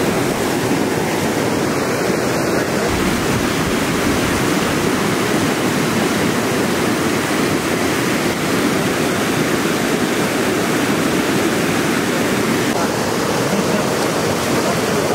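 Loud, steady rush of a fast river running over rocks in rapids.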